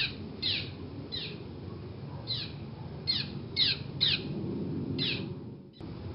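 Birds chirping: about a dozen short calls, each sweeping down in pitch, spaced irregularly over a steady low background of outdoor ambience. The recording drops out briefly near the end and then resumes.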